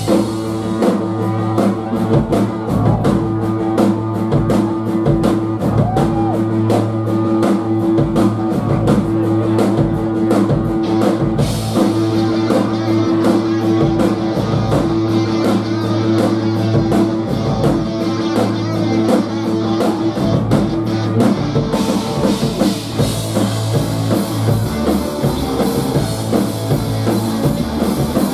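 Live rock band playing: electric guitar, bass guitar and drum kit, with a fast, steady drum beat. The cymbals grow louder about 11 seconds in and again about three-quarters of the way through.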